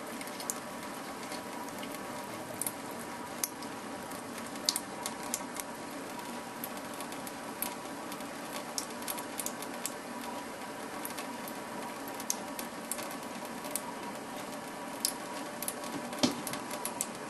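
Thin stream from a kitchen faucet running steadily into a stainless steel sink, with scattered small ticks and splashes throughout.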